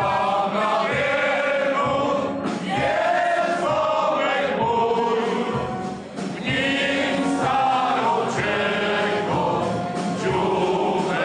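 A crowd of mostly male voices singing a song together in chorus, in long, held phrases, with a short break about six seconds in.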